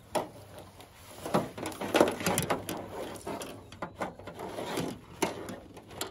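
Fishing tackle being handled in a small boat: a spinning reel being wound, with irregular clicks, rattles and knocks, busiest in the middle of the stretch.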